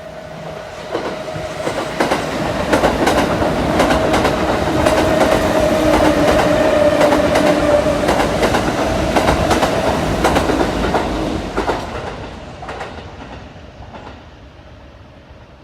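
Kintetsu electric train passing by: a steady whine over a stream of sharp clicks as the wheels run over the rail joints. It builds over the first couple of seconds and fades away from about twelve seconds in.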